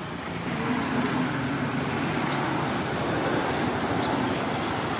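Steady rushing vehicle noise that grows a little louder about a second in.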